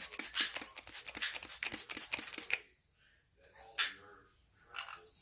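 Small parrot splashing and fluttering its wings in a shallow water dish, a rapid crackle of small splashes for about two and a half seconds. Then it is quieter, with a single sharp splash or flutter near the end.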